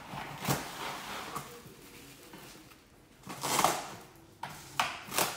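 Plastic cling wrap pulled out of its box and torn off against the box's cutter edge, a rustling rip a little past the middle. Light handling noises and a couple of sharp taps come before and after it.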